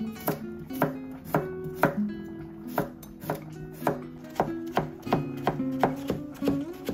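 Kitchen knife slicing cucumber on a wooden cutting board, the blade knocking on the board about twice a second, with background music playing.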